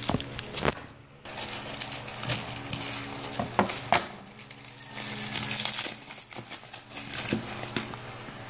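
Plastic bubble wrap crinkling and crackling as it is unwrapped by hand, in irregular bursts with a short pause about a second in.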